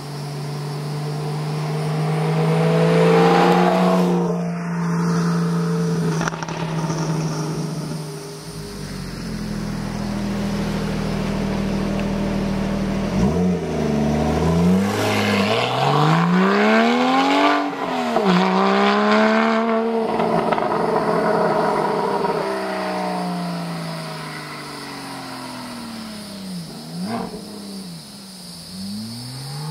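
Porsche 991 911 Carrera S flat-six through an AWE SwitchPath exhaust with X51 Powerkit. It passes close early on, loudest about three seconds in. It then revs up and down repeatedly, the exhaust note climbing and falling in pitch several times in the second half.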